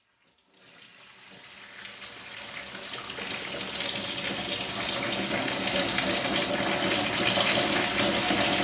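Steady running water, fading in from silence and growing louder over the first few seconds.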